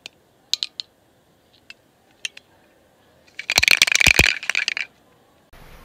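Aerosol can of Crazy String party string shaken hard, a dense rattle lasting about a second and a half, after a few light clicks of handling.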